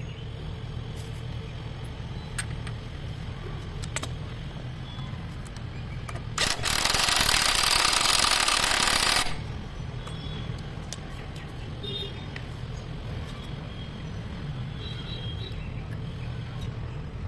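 Single-cylinder diesel engine of a Royal Enfield Diesel Bullet running with a steady low knocking rumble. About six seconds in, a loud hiss starts and lasts roughly three seconds.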